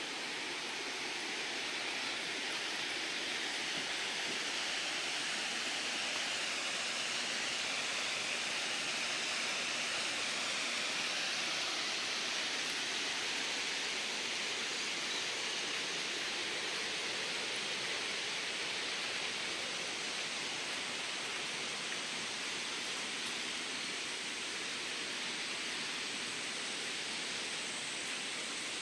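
Steady rush of a river's flowing water, swelling slightly a few seconds in and easing again.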